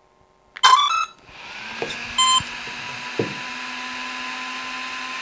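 Two brushless RC car ESCs powering up: the motors give a quick run of stepped start-up beeps, followed by a further short beep. The ESCs' small cooling fans spin up into a steady whir, with a couple of light clicks over it.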